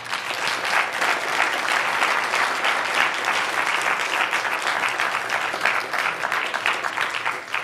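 Audience applauding, many hands clapping, breaking out all at once.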